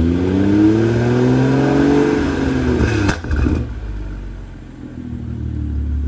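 BMW N55 turbocharged inline-six with a Stage 2 tune, catless downpipe and stock muffler, revved in Sport mode from idle to about 3,000 rpm. The exhaust note climbs steadily for about two seconds. About three seconds in there is a brief sharp crack as the revs are let go, and the engine then drops back to a steady idle.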